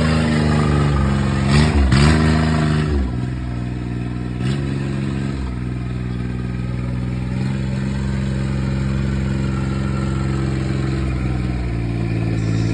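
Side-by-side off-roader's engine running steadily as it drives across wet grass, its pitch dipping and climbing back about two seconds in, with a few short knocks along the way.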